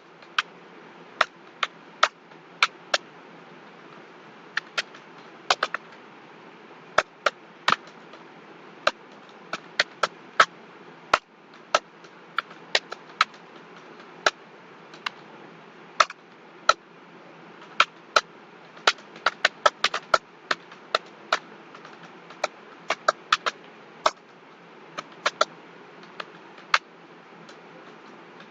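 Computer keyboard being typed on during a timed typing test: irregular, sharp key clicks, about one to three a second, over a steady faint hiss.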